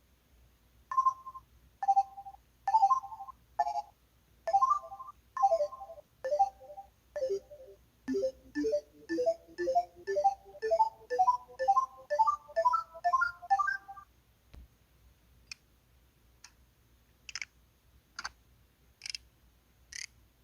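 LG-LU1600 mobile phone's built-in sound effects: a series of short electronic beeps and two-note chimes, then a quick run of notes climbing in pitch for about six seconds. After a short pause comes a string of brief clicky chirps, each about a second apart.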